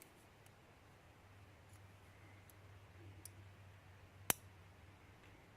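A few faint ticks and one sharp click about four seconds in, from small parts of a gutted pin-tumbler lock being handled.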